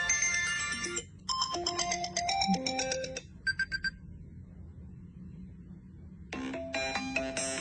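Background music of bright, bell-like melodic notes, pausing for about three seconds in the middle before resuming.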